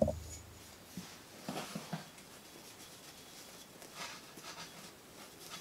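Faint handling sounds of yo-yos being unpacked: soft rustling of fabric yo-yo sleeves and a few light clicks of metal yo-yos being handled, in a few short scattered bursts.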